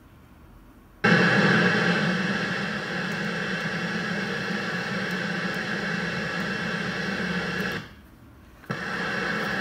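UHF CB radio's speaker hissing with open-squelch static, switching on abruptly about a second in. It cuts out for about a second near the end and comes back.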